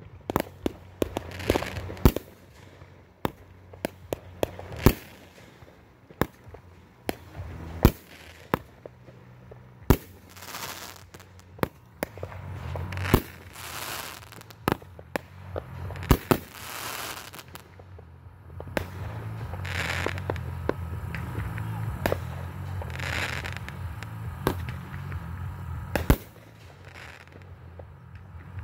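Aerial fireworks bursting overhead: sharp bangs at irregular intervals, some followed by a sizzling hiss. In the second half the booms come thick enough to merge into a continuous low rumble, which drops away near the end.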